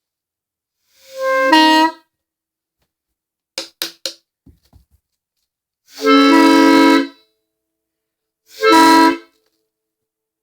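Leslie S5D chime air horn, one of its bells a rebuilt PVC 330 bell, blowing a chord in short blasts: one about a second in, a few quick toots around four seconds, then a longer blast and a shorter one. The chord comes out a little bit weird, the rebuilt bell having tested slightly flat.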